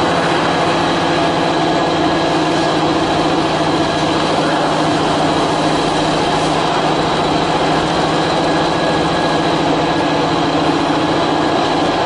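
Dexian DX1325 CNC router running: a loud, steady machine noise with a high, even whine held throughout.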